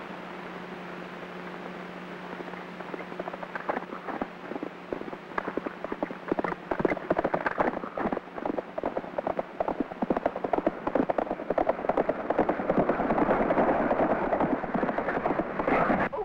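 Horses' hooves galloping, coming in about three seconds in over the steady hum of an old optical film soundtrack. They grow louder into a dense clatter near the end.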